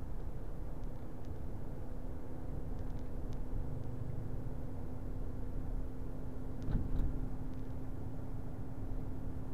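Steady road and engine rumble inside a moving vehicle at road speed, with a faint constant hum and a few light ticks; a short knock two-thirds of the way through.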